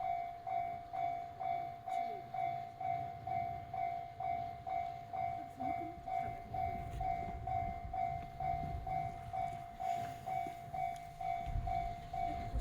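Level crossing's electronic warning bell in the JR standard tone, ringing about twice a second, over the low rumble of a Chichibu Railway 6000 series train passing; the rumble grows heavier near the end.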